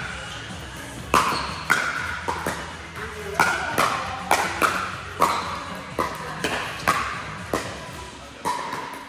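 A fast rally in a doubles ball game: about a dozen sharp ball strikes and bounces, roughly two a second, each with a short ringing ping.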